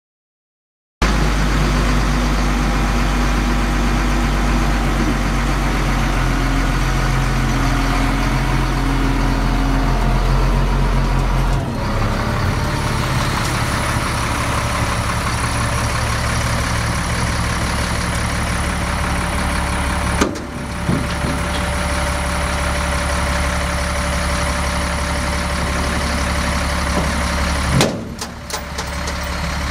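Caterpillar 7.2-litre inline-six diesel engine of a 1998 Freightliner FL70 dump truck idling steadily, starting about a second in. Its low note shifts about twelve seconds in, and the sound dips briefly near 20 and 28 seconds.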